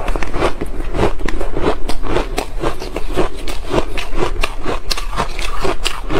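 Matcha-dusted slushy ice crunching and crackling as it is squeezed by hand and bitten and chewed, a quick irregular run of crunches several times a second.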